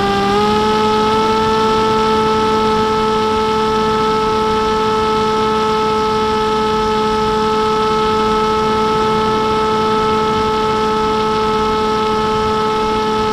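Electric motor and propeller of an F-27 RC flying wing in flight, recorded by its onboard FPV camera: a loud, steady whine that rises slightly in pitch just after the start, then holds a constant throttle.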